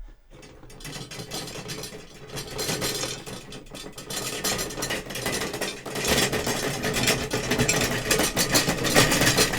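Foley imitation of an approaching train, made by hand with studio props: a dense, fast rattling chug that grows steadily louder as the props are brought closer to the microphone.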